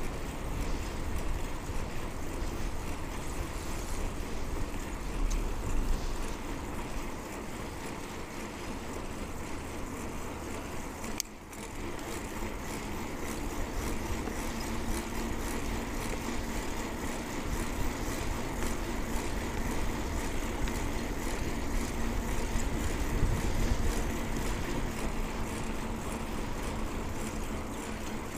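Steady rushing wind and road noise from a moving bicycle, with a low rumble of wind buffeting the clip-on microphone. The sound drops briefly about eleven seconds in.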